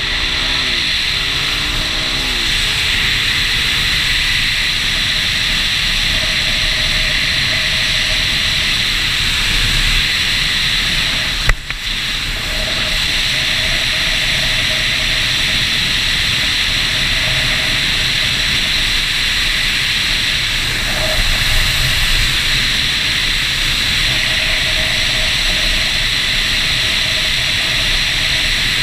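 Steady wind rush over the camera while riding a Suzuki DR-Z single-cylinder motorcycle at cruising speed, with the engine running steadily underneath. A single sharp knock comes about twelve seconds in.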